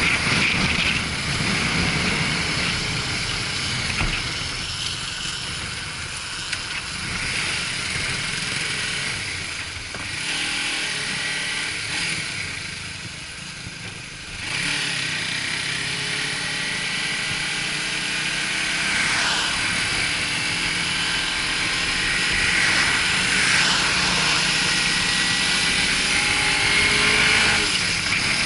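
Suzuki GW250 Inazuma's 250 cc parallel-twin engine running on the move under steady wind rush, the engine note rising and falling with the throttle. About halfway through it eases off, then picks up sharply.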